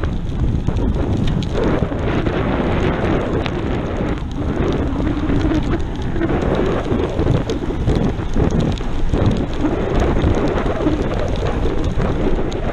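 Wind rushing and buffeting over the microphone of a camera on a bicycle descending fast in heavy rain, with the hiss of rain and wet tyres on the road. A steady, loud, rough rush with no break.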